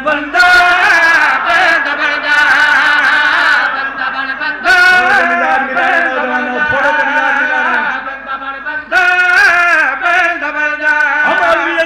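Amplified male voice chanting in a sustained, wavering melodic line. Louder surges of voice break in several times over the chant.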